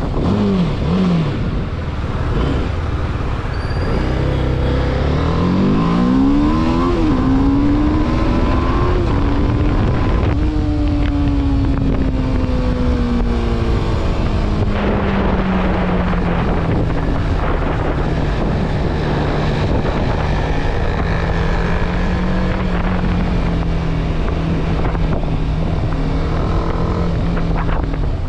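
BMW sport motorcycle's engine heard from the rider's seat, with wind and road noise. It slows with two quick revs near the start, climbs as the bike speeds up from about four to nine seconds in, then eases off and cruises at a steady pitch.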